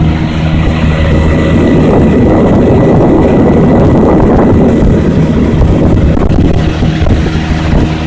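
Small boat's outboard motor running at a steady cruising speed, with a rushing of wind and water that swells midway.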